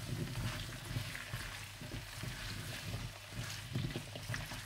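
Potato cubes frying in hot oil in a non-stick wok, sizzling steadily while a spatula stirs and scrapes them.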